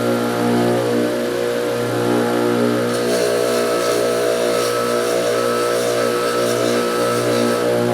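Bench grinder motor running steadily with a constant hum while the steel pliers are held against a spinning abrasive or polishing wheel. A hissing grind grows stronger from about three seconds in and comes and goes as the piece is worked.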